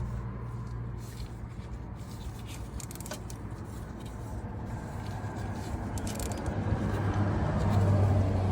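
Ratchet and wrench clicking in short runs over a steady low engine hum that grows louder near the end.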